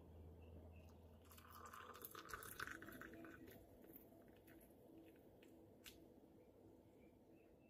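Near silence, with faint clicks and light handling noises.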